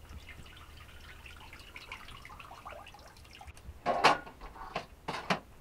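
Water trickling and dripping in faint scattered ticks, then two short, louder handling sounds about four and five seconds in.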